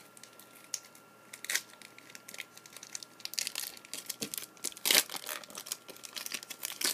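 1995-96 Fleer Metal basketball trading cards being handled and flipped through, making small clicks and rustles, with a louder rustle about five seconds in.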